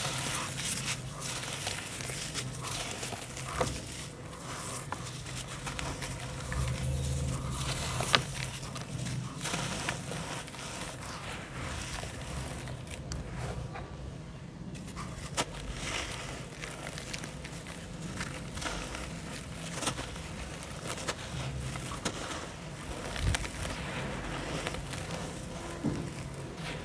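Hands crumbling dry handmade sand balls into a tub of wet sand-water: continual gritty crunching and crackling as the clumps break, with crumbs and powder dropping onto the water. One sharper crack stands out about eight seconds in.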